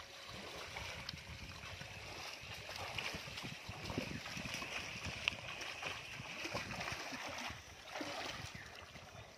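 Pond water splashing and sloshing irregularly as a fishing net full of fish is gathered in by hand, with fish thrashing and leaping at the surface inside the net.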